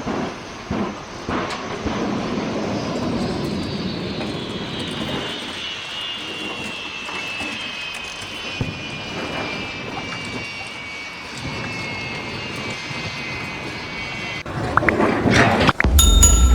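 A high mechanical whine of several tones together, slowly falling in pitch over a steady rushing noise, which stops abruptly about two seconds before the end.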